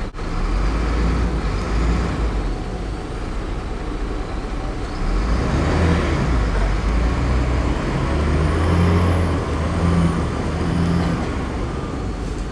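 Heavy diesel engines of earthmoving machinery running with a low rumble. The engine note swells about halfway through and again near the end, as under load.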